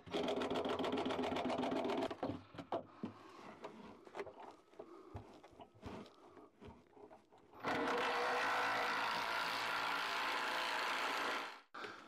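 Battery power tool, a cordless drill or driver, running in two bursts, about two seconds at the start and about four seconds near the end, driving fixings to secure a wooden barn owl box to a tree trunk. Scattered light knocks and clicks between the bursts.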